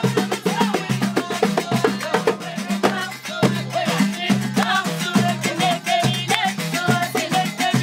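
Moroccan wedding women's ensemble: voices singing over hand-held frame drums, a goblet drum and fast handclaps, in a dense, driving rhythm.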